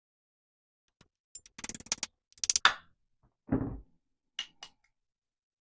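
Small metal gun parts and tools being handled during AR-15 lower receiver assembly: a clattering rattle, a sharp metallic clink, then a dull thud, followed by two small clicks near the end.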